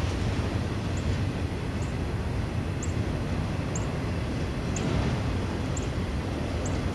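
Freight train of autorack cars rolling past, a steady rumble of steel wheels on the rails. Faint high ticks come about once a second.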